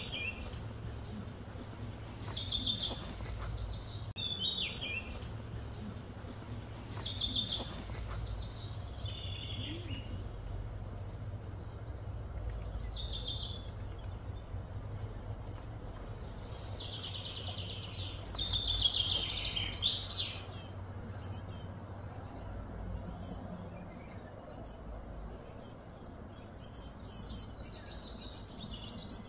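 Wild birds calling outdoors: short high chirps and trills every second or two, busiest a little past the middle, over a steady low hum. In the last third, rapid high chirping repeats many times a second.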